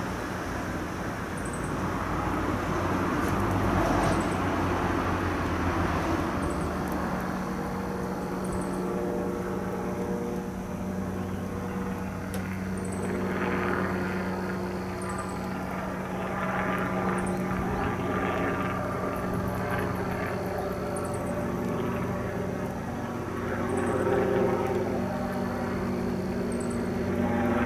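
Light helicopter flying overhead: the steady drone of its engine and two-bladed rotor, swelling and easing slightly as it moves across the sky.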